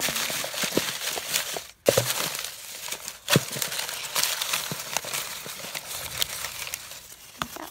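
Paper slips rustling and crinkling as a hand rummages through a box full of folded notes, with a few sharper crackles and a brief pause just before two seconds in.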